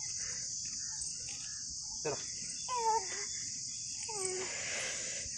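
Steady, high-pitched insect chorus, such as crickets or cicadas, with faint short calls or voices about two and four seconds in.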